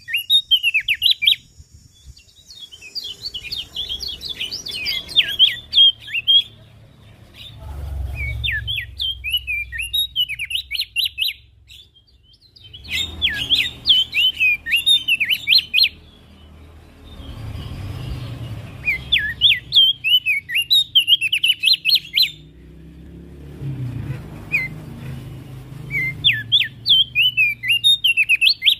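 Opior jambul (Javan grey-throated white-eye) singing in phrases of quick, sweeping twittering notes, each phrase about two to three seconds long and separated by short pauses. A faint low rumble sits underneath.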